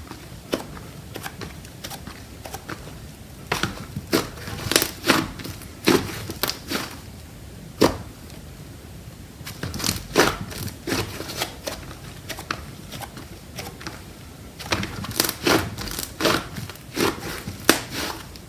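Slime being squished and stretched by hand, making irregular clicking and crackling pops in clusters.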